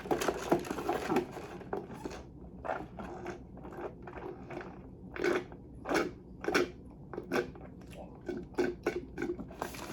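Close-miked chewing and biting: wet mouth clicks and smacks at an irregular pace, a few louder ones midway.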